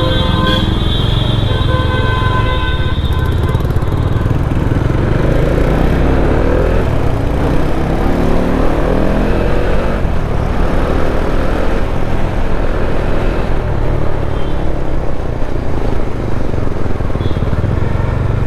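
Bajaj Dominar 400's single-cylinder engine running on the move in traffic, heard from the rider's seat with wind rush. Its pitch rises several times as it accelerates through the gears, about five to ten seconds in.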